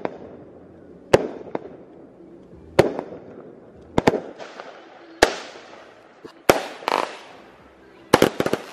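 Aerial fireworks bursting: a string of sharp bangs about a second apart, several trailing off in a fading hiss, with a quick run of five bangs near the end.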